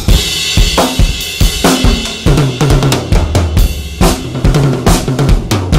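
A Yamaha drum kit played in a steady groove: a bass drum fitted with an Evans EMAD head thumping under snare and tom hits, with a cymbal crash ringing through the first couple of seconds.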